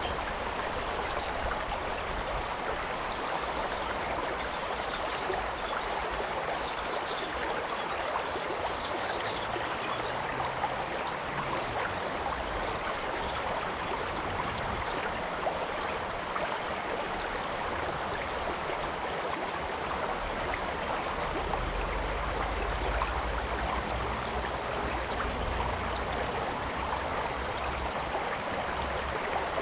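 Stream water flowing, a steady rushing that holds at an even level throughout.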